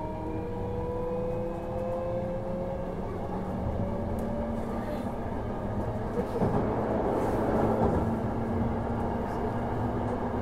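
Hankyu 1000 series train running, heard from inside the passenger car: the whine of its permanent-magnet synchronous traction motors, several tones rising slowly in pitch and fading after about four seconds, over the wheels' running rumble on the rails. The rumble grows rougher and louder for a couple of seconds past the middle.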